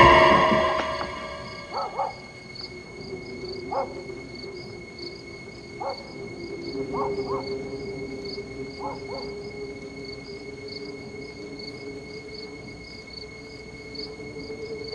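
Crickets chirping steadily, about two chirps a second, with a few short calls scattered through the first ten seconds and a faint held low tone underneath.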